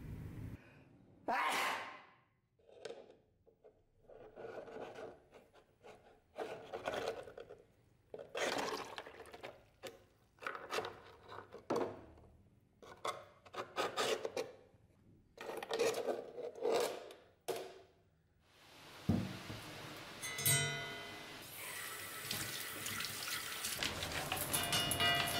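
Irregular splashes and drips as rusty steel sword parts are lifted out of a plastic bottle of rust-remover liquid, then, near the end, a tap running into a stainless-steel sink.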